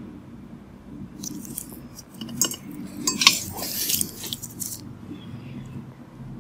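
Handling noise: a burst of light clinking and rustling starting about a second in and dying away near five seconds, over a steady low hum.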